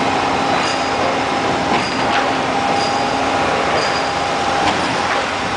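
Machinery running steadily: a constant drone with a steady humming tone on top, and a few faint short clicks.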